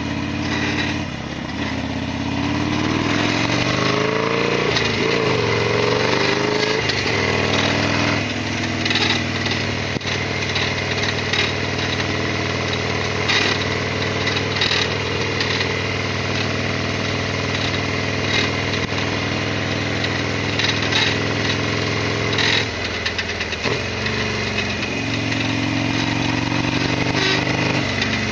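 Harley-Davidson Sportster XL1200R V-twin engine running under way. Its pitch climbs in a few sweeps through the gears early on, holds steady at cruise, then drops briefly near the end and climbs again. Heard through a helmet chin-mounted action camera's microphone.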